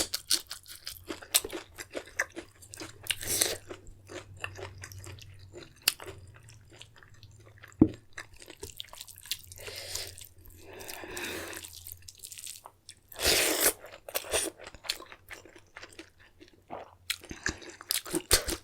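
Close-miked chewing and crunching of food, with many small wet clicks and a sharp louder click about eight seconds in.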